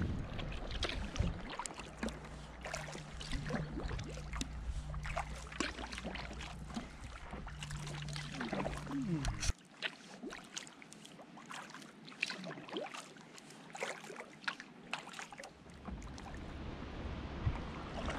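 Kayak paddling on slack water: irregular small splashes and drips as the paddle blades dip and lift. A low steady rumble underneath cuts off abruptly about halfway through.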